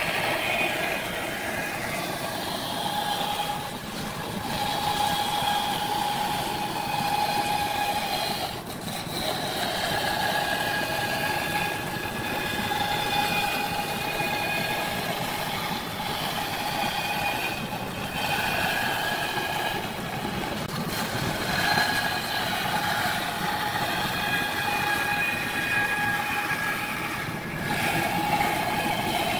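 Band saw running and cutting through a thick rough-sawn wooden plank, a steady machine noise with a high whine that swells and fades every few seconds as the blade works through the board.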